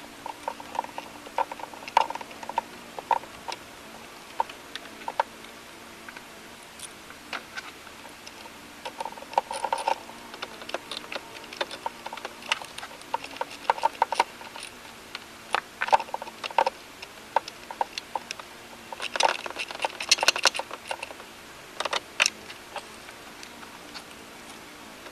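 Irregular clicks, taps and knocks of hard plastic and metal parts being handled as the top-mounted intercooler is fitted back over the engine, with a busy cluster of clicks about three-quarters of the way through.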